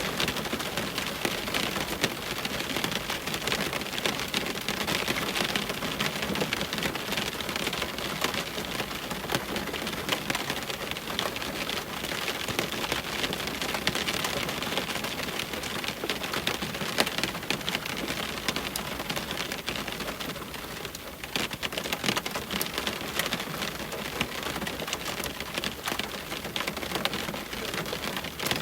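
Heavy rain hitting a window: a steady hiss with many separate drop ticks, briefly lighter a little past two-thirds of the way through.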